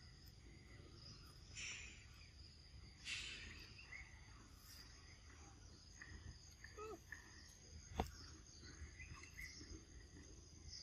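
Faint outdoor ambience of steady insect chirring, with short rustles near the start and about three seconds in, a few faint falling chirps around seven seconds, and a single sharp click about eight seconds in.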